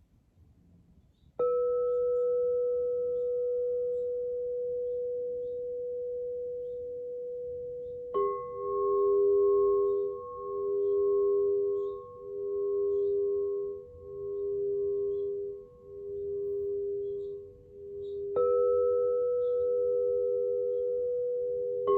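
Alchemical crystal singing bowls struck one after another, each ringing on with a long, pure tone. The first bowl sounds about a second in and again after about 18 seconds. A second, lower bowl joins after about 8 seconds, and its tone swells and fades in a slow pulse about every two seconds.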